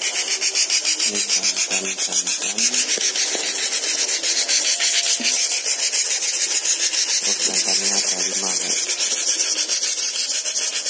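Nestling songbirds in a box begging together: a continuous, rapid, raspy high-pitched chirring made of fast even pulses.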